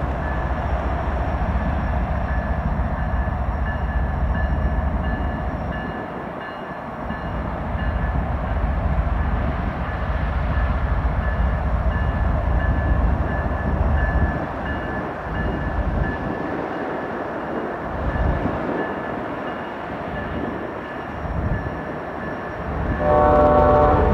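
Kansas City Southern diesel locomotives rumbling as they pull away, with a bell ringing steadily in the background. The horn sounds about a second before the end.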